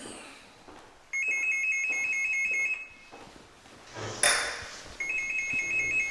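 An electronic ringer, a telephone or door intercom, rings twice with a fast trilling tone, each ring about a second and a half long. A brief loud burst of noise comes between the two rings.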